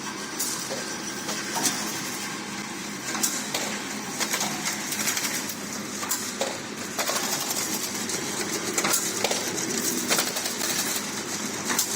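Incense-stick counting and packing machine running, a steady mechanical hum with many irregular clicks and the clatter of sticks.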